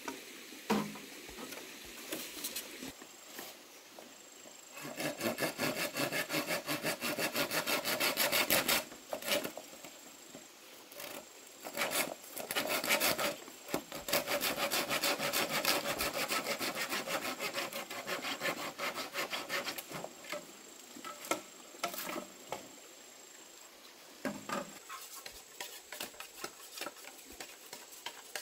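Hand saw cutting through wood in three long runs of fast back-and-forth strokes, with a few sharp knocks between the runs and later on.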